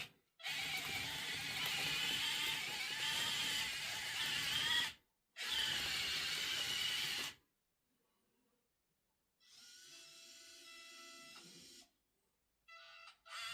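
Small electric motors and gearboxes of a 1:50-scale RC construction model whirring in runs: a long stretch of about four and a half seconds, a brief stop, then two more seconds. After a gap comes a quieter, steadier whine for about two and a half seconds, then a couple of short bursts near the end.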